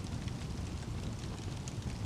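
Logs burning in a fireplace: a steady low rumble with a few faint, scattered crackles.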